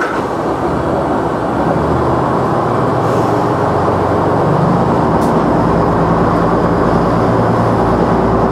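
KiHa 100 diesel railcar's engine powering up as the train pulls away from a standstill, its note growing louder and deeper from about two seconds in.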